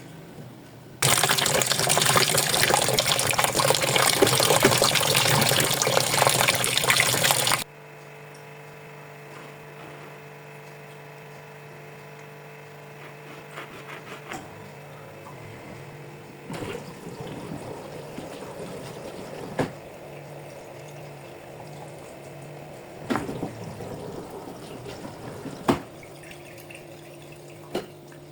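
Sharp washing machine with water gushing loudly for about six seconds, then cutting off suddenly. A steady hum from the machine follows, with a few sharp clicks and knocks.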